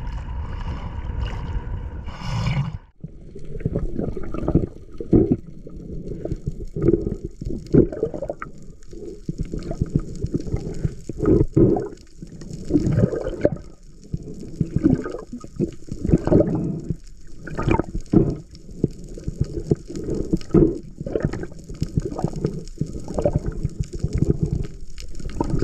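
Underwater water noise: irregular gurgling and sloshing surges of water against the camera, coming every half second to a second after a sudden break about three seconds in.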